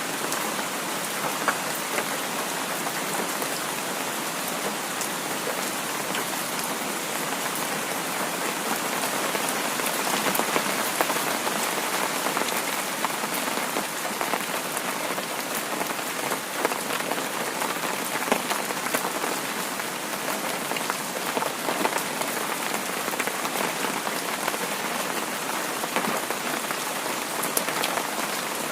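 Heavy rain falling steadily, with many small drop ticks spattering through the constant hiss.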